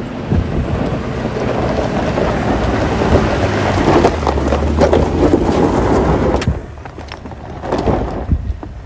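Heavy wind buffeting the microphone in open desert: a loud, rough rumble that eases off after about six and a half seconds.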